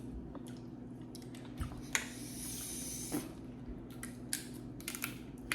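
Eating and handling of a seafood boil: scattered small clicks, cracks and wet smacks, with a soft hiss lasting about a second near the middle.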